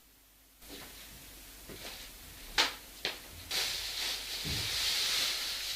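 Two sharp knocks about half a second apart inside a flat, then a steady rushing hiss with a dull thump in it, which lasts to the end.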